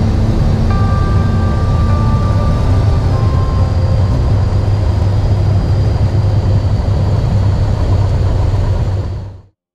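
Single-engine light aircraft's piston engine and propeller, a steady low drone heard from inside the cockpit. It fades out about nine seconds in.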